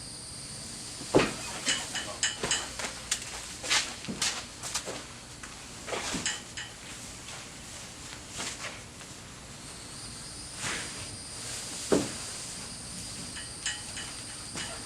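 Scattered knocks and clatters of hard objects being handled, the loudest about a second in and again near the end, over a steady high chirring of crickets.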